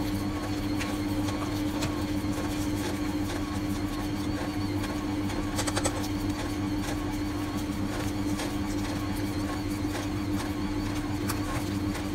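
Electric stand mixer motor running steadily with a constant hum as it kneads bread dough, with a brief clatter about halfway through.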